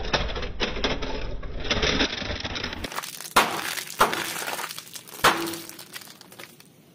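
Car tyre crushing a plastic toy train, with dense cracking and crunching of the plastic. About three seconds in, sealed snack packets are crushed under the tyre instead: three sharp pops as the bags burst, with crinkling and crunching between them, fading near the end.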